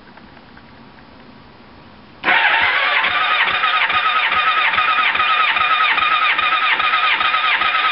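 About two seconds in, the electric starter begins cranking a 1987 Kawasaki ZX750R's four-cylinder engine over steadily, a whir with an even beat, for a compression test on the number one cylinder after a fresh valve job.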